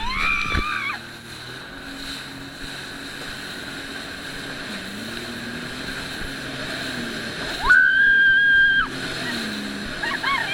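Jet ski engine running on the water, its pitch rising and falling with the throttle, over wind and water noise. About eight seconds in, a loud, steady high tone is held for about a second.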